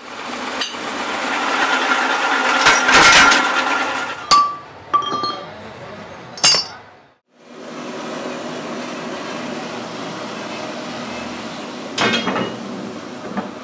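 Metal-workshop machinery running, with sharp metal clinks and clanks. The sound cuts out briefly about halfway through, and a steady machine noise follows, with another clank near the end.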